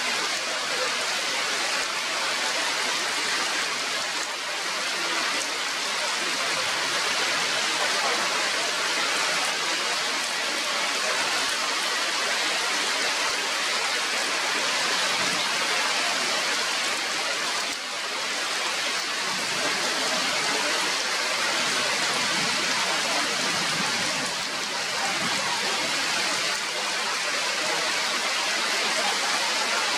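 Steady rain falling on the leaves of the forest trees.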